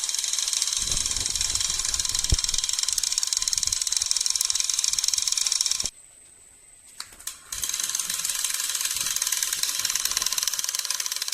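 Buzzer of a homemade door alarm sounding with a harsh, high-pitched continuous buzz. It cuts off abruptly a little over halfway through, stays off for about a second and a half with a couple of small clicks, then starts buzzing again. A single low knock comes about two seconds in.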